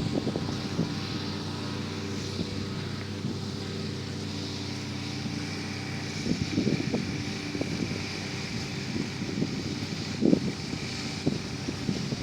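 An engine drones steadily, with wind buffeting the microphone in occasional gusts.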